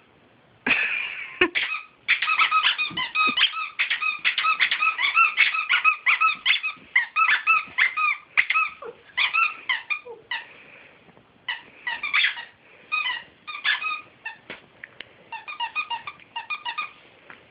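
Squeaky dog toy squeaked over and over in fast runs of short, high squeaks with brief gaps, as a puppy shakes and chews it.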